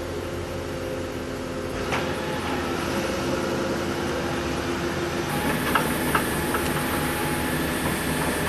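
Remote-controlled backhoe's diesel engine running steadily while the machine is turned, with a sharp click about two seconds in and a few short high squeaks around six seconds in.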